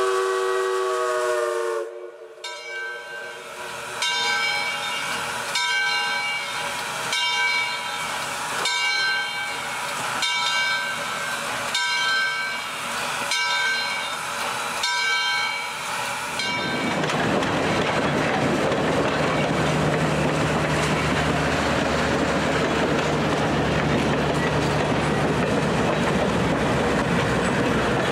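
A Lionel O-scale model freight train on three-rail tubular track: a train whistle sounds for the first couple of seconds, then a ringing tone repeats about every second and a half. From about 16 seconds in, the locomotive and its freight cars rumble and clatter steadily as they roll close past.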